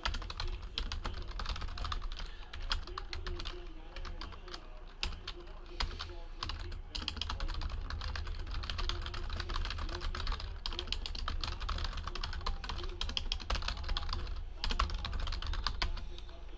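Typing on a computer keyboard: runs of rapid key clicks with a few short breaks, over a steady low hum.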